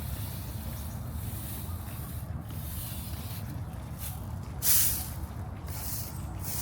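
Outdoor park ambience: a steady low rumble under soft, repeated scuffing footsteps, with one louder brief hiss about two-thirds of the way through.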